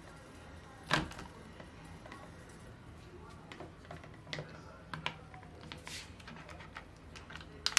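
Hard plastic clicks and knocks as a handheld garment steamer's water tank is handled against a ceramic sink and fitted back onto the steamer: a sharp knock about a second in, several lighter taps, and a loud click near the end.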